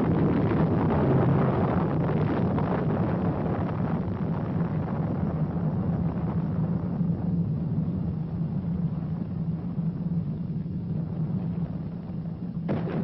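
Sound-effect rumble following a meteor-impact explosion, loud at first and slowly dying away. About a second before the end, a sudden sharper sound cuts in.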